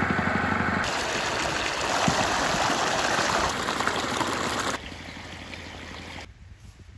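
Well water pump running with a steady hum for about the first second, then water gushing into an irrigation channel. The rush drops off about five seconds in and softens to a gentler flowing stream near the end.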